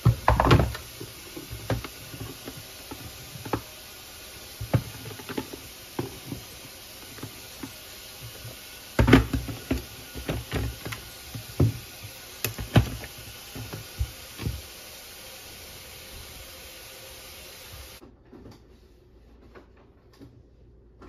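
Knocks and clatter of a glass electric kettle and its power cord being handled, set down on a countertop and plugged into a wall outlet: a cluster of knocks at the start and another run about halfway through, with a few lighter taps between.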